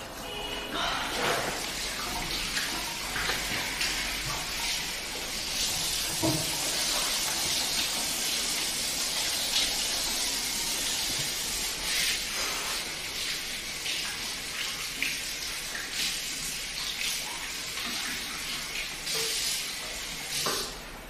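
Water running steadily from a tap, with a few light clicks and knocks.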